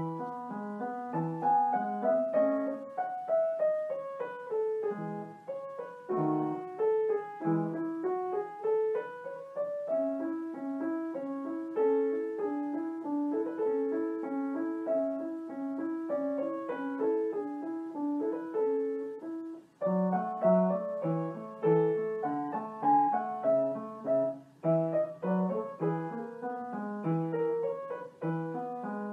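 Solo piano background music: a gentle melody of rising and falling runs of notes over a repeating bass.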